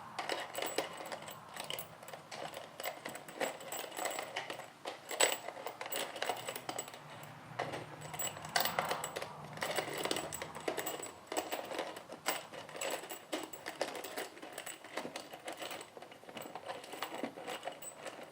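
Loose nails rattling and clicking against each other and a plastic organizer bin as they are shuffled by hand to make them lie flat.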